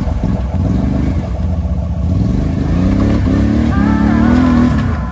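Can-Am Outlander 570 ATV's V-twin engine revving under load over rough ground, the revs climbing from about two seconds in and falling away just before the end.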